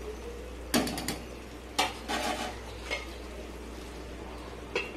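Kitchen utensils clinking and knocking against a metal kadai: a quick cluster of the loudest knocks about a second in, a few more around two to three seconds, then a glass pan lid knocking onto the rim of the pan near the end.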